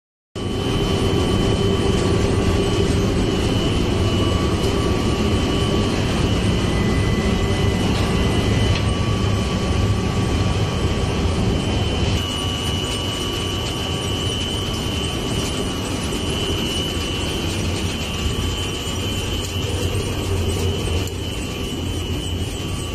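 Foundry green-sand handling machinery running: a loud, steady drone of electric motors and rotating equipment with a constant high whine over a dense rumble.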